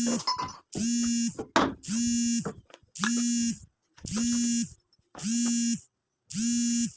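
An electronic buzz sounding seven times, about once a second, each buzz a steady flat tone lasting about two-thirds of a second.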